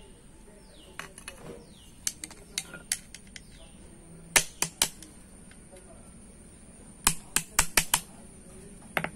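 Small hammer tapping a punch on a brake shoe's lining, sharp metal-on-metal clicks as the lining is fixed to the shoe. Single taps come first, then a quick run of three about four seconds in and a run of five about seven seconds in.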